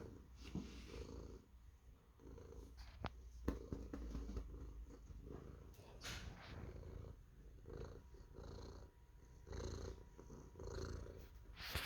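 Domestic cat purring, the low purr swelling and fading in a steady cycle with its breathing, with a few soft clicks.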